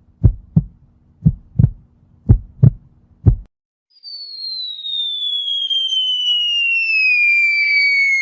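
Heartbeat sound effect: paired low thumps in a lub-dub rhythm, about one pair a second, stopping about three and a half seconds in. About half a second later a long whistle begins and falls slowly and steadily in pitch.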